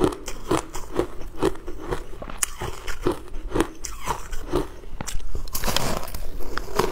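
Crushed coloured ice being chewed close to the microphone: steady crunches about two a second. About five seconds in comes a louder, denser crackling as a new clump is bitten into.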